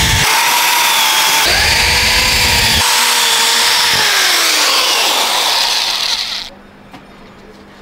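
Cordless drill-driver driving a screw into the clock's back board: a motor whine with a heavier low rumble in two stretches as the screw is driven. The whine then falls in pitch as the motor winds down, and it stops about six and a half seconds in.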